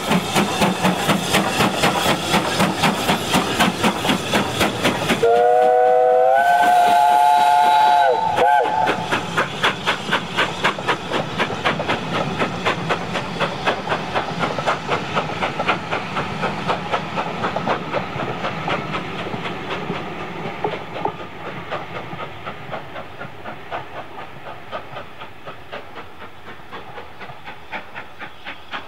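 BR Standard Five 4-6-0 steam locomotive 73082 working hard with a passenger train: sharp, rhythmic exhaust beats. About five seconds in its steam whistle sounds for about three seconds, a chord of several tones that rises briefly before holding. The exhaust beats and the rattle of the coaches then fade steadily as the train draws away.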